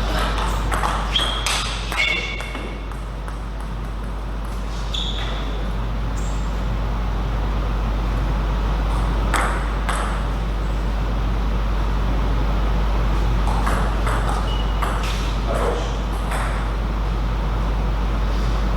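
Table tennis ball clicking off rackets and the table in short runs of quick hits, with gaps between them, over a steady low hum.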